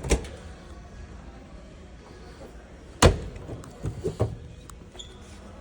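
A washing machine lid being handled: a knock at the start, a loud slam about three seconds in, then two lighter knocks.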